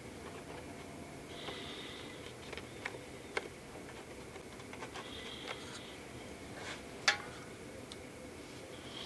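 Small handling noises from repair work on a paper speaker cone: a few light clicks and taps, the sharpest about seven seconds in, and two brief scratchy rustles, over a steady low hum.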